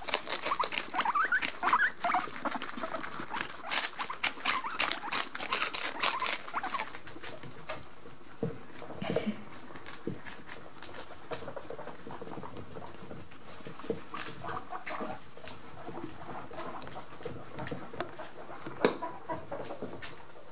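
Guinea pigs chewing lettuce close to the microphone: rapid, crisp crunching, with a few short squeaks in the first two seconds. After about seven seconds the chewing becomes quieter and more scattered.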